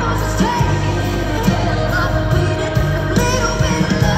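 Live country band playing loud, with a woman singing lead over drums, bass and electric guitar, as heard from the audience in an arena.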